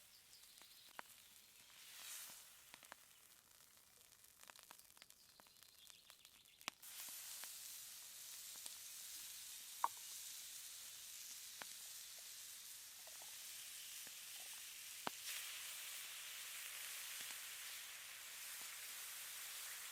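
Bone-in ribeye steak sizzling on a hot stone: a steady sizzle that starts suddenly about seven seconds in and carries on, with a few sharp pops. Before it, only scattered small clicks.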